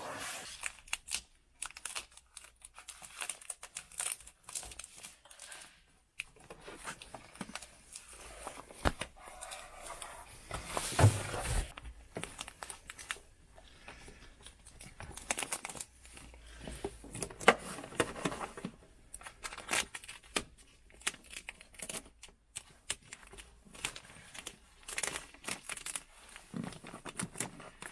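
Hand work on a wire pass-through in a van's foil-insulated body panel: crinkling of the foil insulation and tape, with scattered sharp clicks and knocks. A louder stretch of rustling comes about eleven seconds in.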